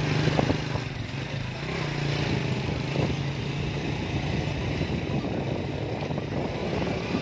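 Motorcycle engine running steadily with a low hum, heard from the pillion seat while riding, under a broad rush of wind and road noise.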